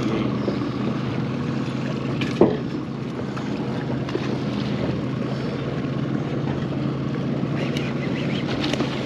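Boat motor running steadily, with wind and water noise over the microphone; a brief sharp knock about two and a half seconds in.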